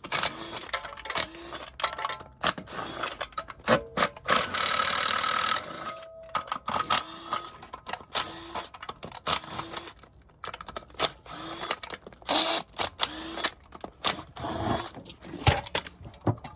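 Mechanic's tools working on a transmission's bolts: many quick metallic clicks and knocks. About four seconds in, a cordless power tool runs in one short, steady burst.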